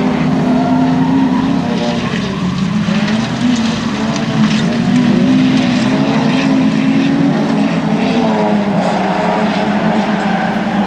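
Engines of several rokkiralli race cars, cheap old saloons, running hard together on the circuit. Their overlapping notes rise and fall as the cars are revved and shifted.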